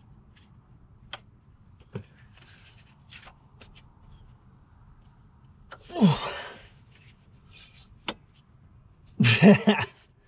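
A man's two strained grunts of effort, about six and nine seconds in, as he squeezes the drum brake shoes together by hand to push the wheel cylinder pistons back. A few light clicks from the brake parts come in between.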